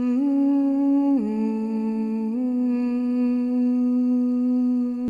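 A long held hum on a few slow notes: it steps up slightly at first, drops lower about a second in, then returns to the first note and holds it steady.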